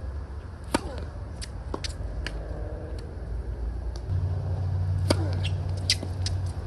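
Tennis balls struck by rackets in a rally: a sharp serve hit about a second in, then fainter hits and bounces, and two loud hits near the end. A low steady rumble runs underneath and grows louder about four seconds in.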